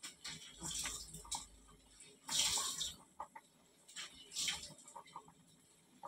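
A pot of tempoyak broth at a rolling boil on a gas stove, bubbling and spitting in irregular surges of hiss with small pops between them, the loudest about halfway through.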